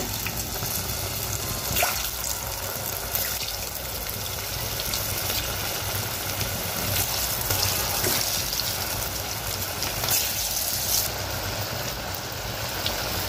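Batter-coated potato sticks deep-frying in hot refined oil: a steady sizzle with occasional sharper crackles.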